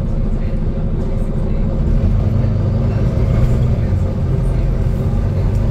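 Onboard a Volvo B9TL double-decker bus in motion: its six-cylinder diesel engine runs steadily under a low drone of engine and road noise, getting a little heavier about two seconds in.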